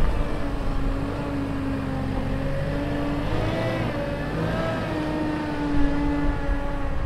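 Wind buffeting the microphone, with a steady pitched hum that shifts and glides in pitch around the middle, likely a motor vehicle's engine.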